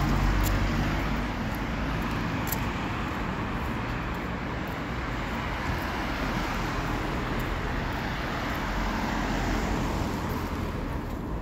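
Road traffic on a city street: a steady hiss and rumble of passing cars, loudest in the first second or so.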